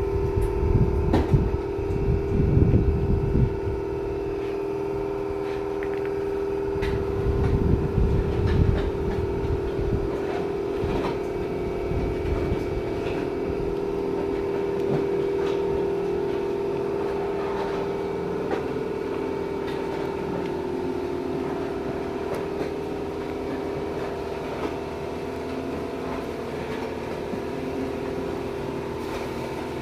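Industrial air compressor running with a steady hum. Irregular low rumbles come in over it during the first few seconds and again around eight seconds in.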